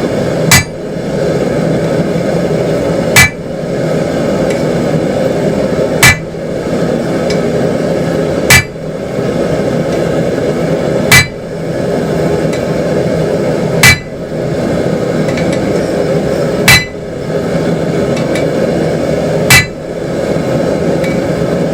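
Single, slow hammer blows on hot 3/8-inch square steel held in a hold-down, dimpling the bar: eight sharp strikes about every two and a half to three seconds, each ringing briefly. A steady running noise continues underneath.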